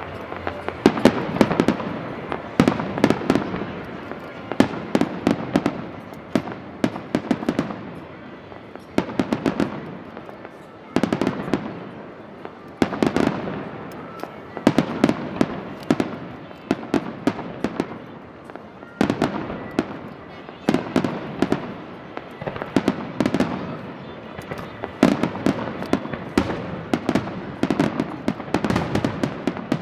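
Aerial firework shells bursting in quick succession: a dense run of sharp bangs, arriving in clusters every second or two, over a steady rumble and crackle.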